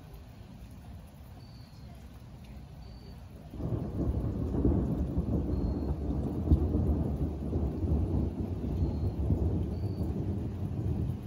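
Thunder: a deep rolling rumble that breaks in suddenly about three and a half seconds in and keeps rolling on.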